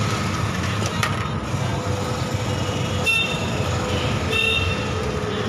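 Steady low background rumble, with faint high tones about three and four and a half seconds in.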